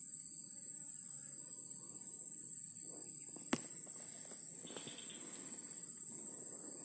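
Steady high-pitched buzzing of insects, with a single sharp click about three and a half seconds in.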